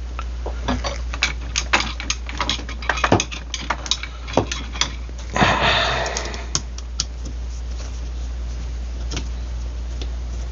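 Small metal tools and parts clinking and clattering as they are handled on a workbench, with a brief scraping rustle about five and a half seconds in. A steady low hum runs underneath and is all that is left for the last few seconds.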